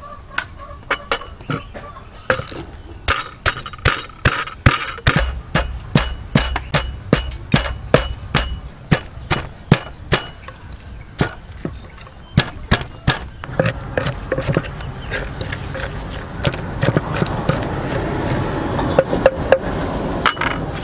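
A pestle pounding red chilies, garlic and salt in a wooden mortar, with sharp strikes at about two a second. Over the last several seconds the strikes come thicker and softer as the mix breaks down into a wet paste.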